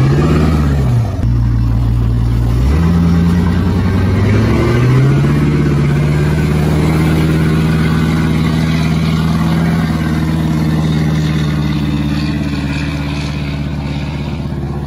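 Diesel pickup truck engine revving hard as the truck spins its wheels in mud. A couple of short rev blips at the start, then it climbs twice and holds at high revs.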